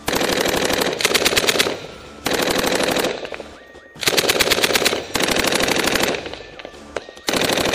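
Automatic machine-gun fire in four long bursts of rapid shots, with short pauses between them.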